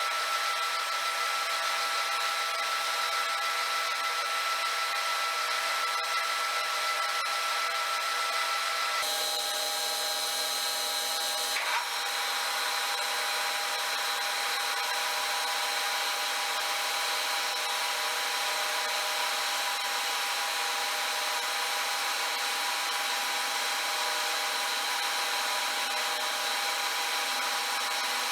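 A power machine tool running steadily while cutting steel, a continuous whine over grinding noise. Its tone changes abruptly about nine seconds in and again near twelve seconds.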